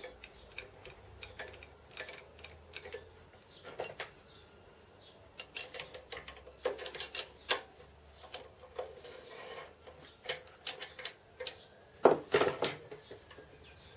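Irregular metallic clinks and knocks of steel tools and a steel bar being handled, loudest in a short cluster near the end.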